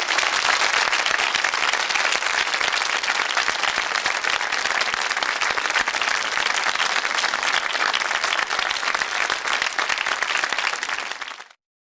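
Studio audience applauding steadily, cutting off suddenly near the end.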